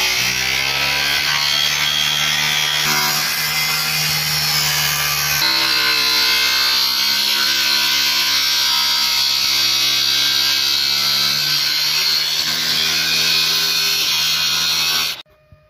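Electric angle grinder with a cutting disc running loud and steady as it cuts a rectangular opening through the sheet-steel lid of a control-panel enclosure, its motor pitch shifting a couple of times under load. It cuts off suddenly near the end.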